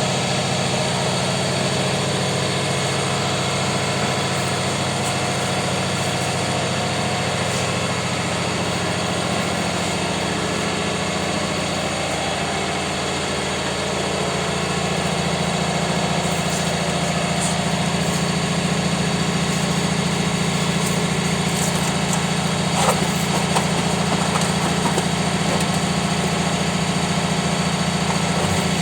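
Scrap baling press running with a steady machine hum whose low tones shift about halfway through, with a few brief knocks near the end.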